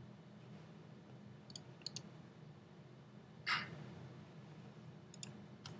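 A few light clicks, and about three and a half seconds in a single short, thin burst: a Colt .45 pistol gunshot sound effect played through headphones and picked up faintly by a microphone beside them.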